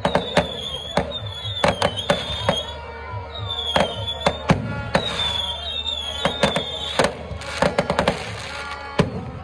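Aerial firework shells bursting overhead in a string of sharp bangs and crackles, over music and a steady low hum.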